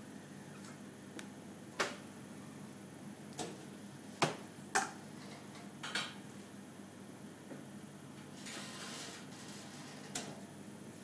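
Sharp clacks and knocks from a manual screen-printing press as its metal screen frames are handled, about six in all, with a brief scraping swish about eight seconds in.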